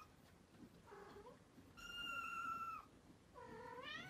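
Kitten meowing three times: a short faint meow about a second in, a long, steady, high-pitched meow, then a meow rising in pitch near the end.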